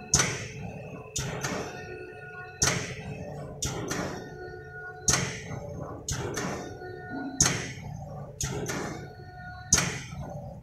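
Paneer cutting machine's cutter frame cycling up and down, knocking sharply about once every 1.2 s, the knocks alternately louder and softer, over a steady machine hum.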